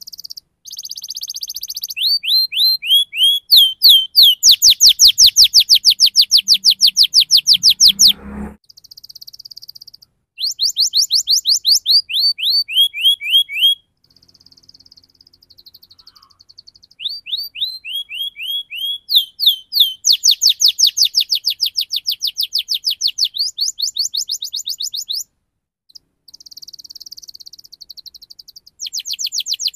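Domestic canary singing: rolling trills of rapid, evenly repeated downward-sweeping chirps, about nine a second, in loud phrases several seconds long broken by short pauses and softer buzzy trills.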